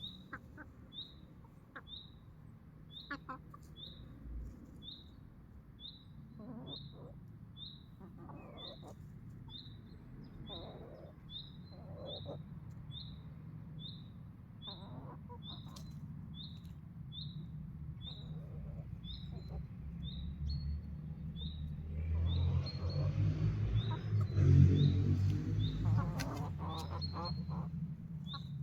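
A bird repeating one short, high chirp at an even pace, about three calls every two seconds. Under it runs a low rumbling, scuffling noise that swells near the end.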